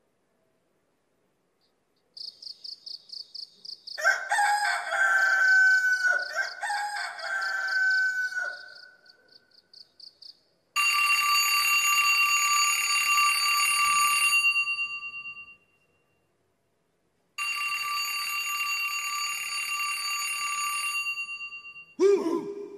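Recorded wake-up sound effects: first a rapid high beeping, then a rooster crowing twice with falling calls. After that come two long, steady buzzing alarm tones with a pause between them, and a single low thump near the end.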